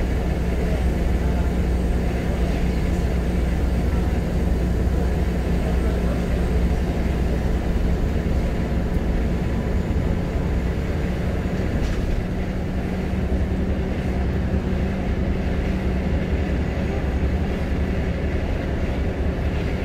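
Scania L94UB Wright Solar bus heard from inside the passenger saloon: its nine-litre five-cylinder diesel and drivetrain run with a steady low drone and a constant hum, dipping slightly in level about two-thirds of the way through.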